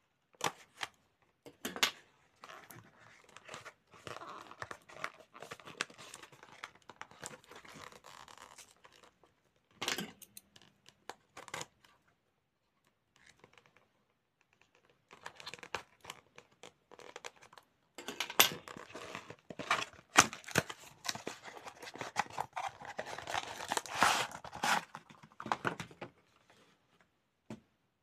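Small cardboard box being opened by hand: tearing, crinkling and sharp clicks of card and scissors, in two long spells with a few quiet seconds between.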